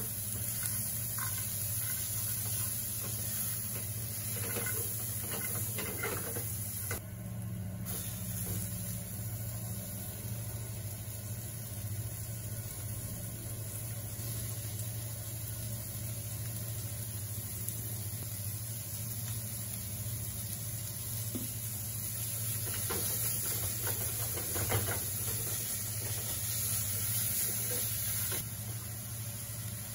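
Ginger, garlic and sliced red onion sizzling in oil in a metal pot, stirred with a silicone spatula, with a few bouts of scraping against the pot. A steady low hum runs underneath.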